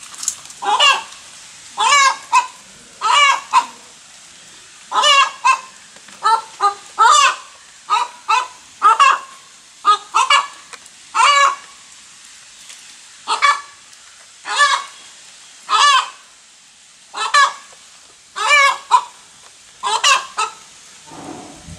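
Hen cackling after laying an egg (the egg song). It gives a long run of loud repeated calls, often in pairs, with short pauses between runs.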